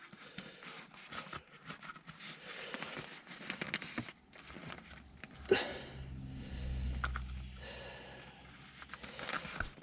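Small clicks and scrapes of a plastic gear knob and its trim ring being handled and pushed together, with a sharper click about five and a half seconds in. A low steady hum runs for a couple of seconds in the middle.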